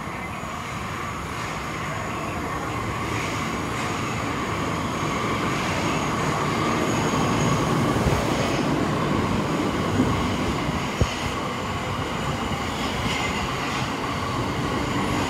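Tokyo Metro Ginza Line subway train running: a steady rumble of wheels on rail that slowly grows louder, with a faint high squeal over it. Two sharp clicks come about ten and eleven seconds in.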